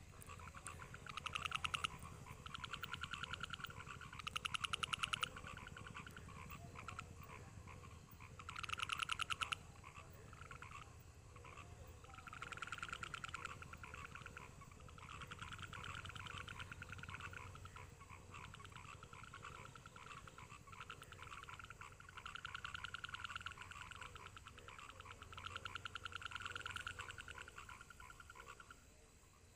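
Frogs calling: bouts of fast pulsing trills a second or two long, repeating every few seconds and overlapping, loudest at the start and about nine seconds in.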